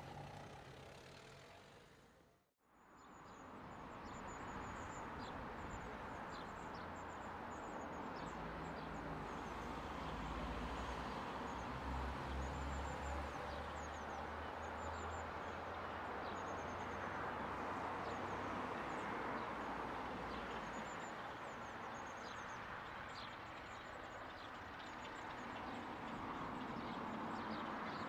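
A Class 33 diesel locomotive's engine fading out in the first couple of seconds, then a low, distant diesel engine rumble under a steady outdoor hiss, with birds chirping throughout.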